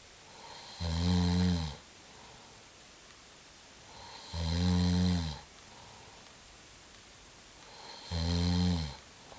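A person snoring: three long, low-pitched snores about three and a half seconds apart, each lasting about a second and each led in by a soft hiss of breath.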